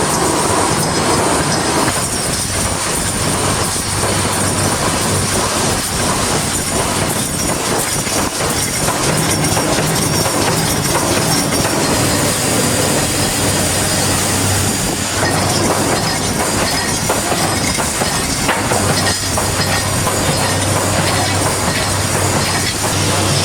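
Wire mesh welding machine running: continuous loud mechanical clatter of repeated knocks over a steady low electrical hum.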